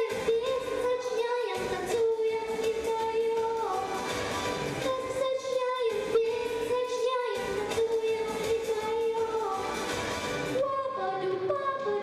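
A young girl singing solo into a handheld microphone over recorded backing music, her voice holding and sliding between sustained notes.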